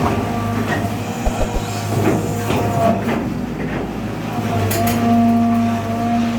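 Kobelco Yutani SK120 excavator's diesel engine running with a steady hydraulic whine, the whine strengthening under load about five seconds in, and a few sharp metallic knocks.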